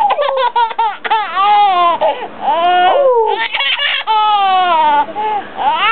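Young infant laughing hard: a string of high-pitched squealing peals, choppy at first and then longer rising-and-falling squeals, with short breaths between.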